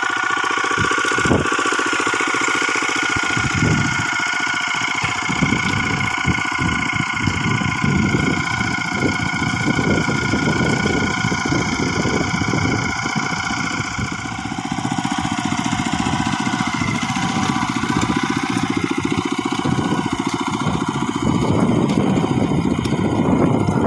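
The small engine of an ISEKI PC4 rice transplanter running steadily.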